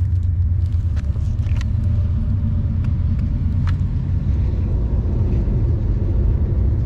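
Steady low rumble, with a few faint clicks over it.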